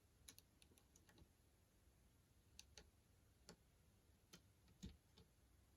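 Faint, irregular metal ticks of a lock pick probing and setting the pins inside a pin-tumbler padlock, about a dozen small clicks in all.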